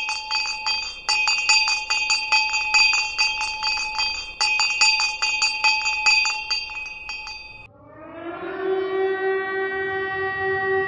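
A hand bell rung rapidly in a quick run of strokes, stopping about seven and a half seconds in. A siren then rises in pitch and holds a steady tone.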